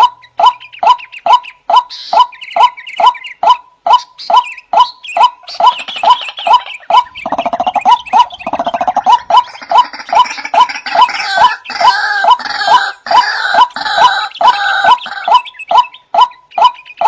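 Male white-breasted waterhen calling: a monotonous series of short, croaking 'wak' notes, about two to three a second. A rougher, gurgling chatter joins in over the middle part and then drops away.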